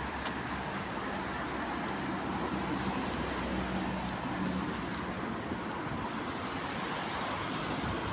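Steady road traffic noise with a faint engine hum, and a few small clicks over it.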